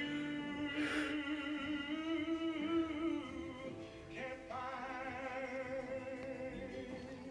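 Background music with a singing voice holding long, steady notes.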